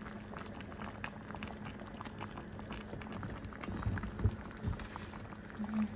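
Pot of soup simmering on the hob, with scattered small bubbling pops over a steady low hum.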